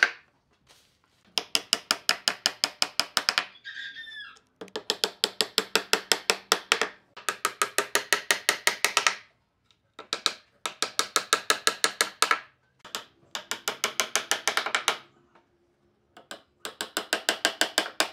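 Six runs of rapid mechanical clicking, about nine clicks a second, each run lasting about two seconds with short pauses between, and a brief squeak after the first run.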